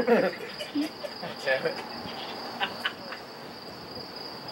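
Crickets chirping in a steady high trill. Brief, faint voices come through near the start and again about a second and a half in.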